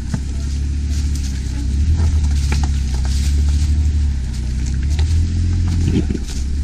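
Lifted Jeep Wrangler rock-crawling at low speed, its engine running steadily at low revs and getting louder about two seconds in. Scattered short knocks and clicks come through over it.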